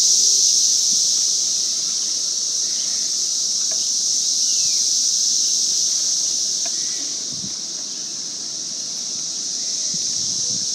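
Steady, high-pitched insect chorus buzzing without a break. Brief low gusts of wind on the microphone come in near the end.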